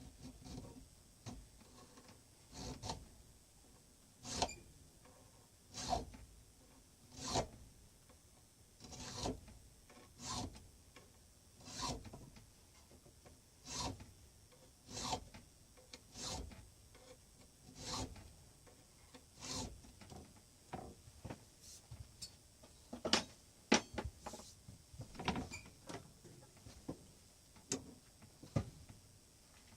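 Hand file rasping across the steel screw of a bench vise in slow, separate strokes, about one every second and a half, with a few quicker, sharper strokes near the end. It is filing a small flat on the round screw as a seat for a drill bit, so the bit won't wander.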